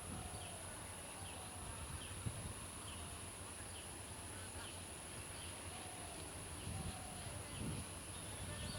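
Rural outdoor ambience: a steady high insect drone, with short chirps repeating about every half second and a few soft whistled bird notes.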